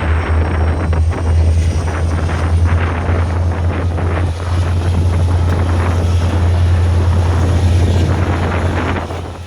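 Diesel locomotive engine running loud and steady with a deep rumble, dropping off about nine seconds in.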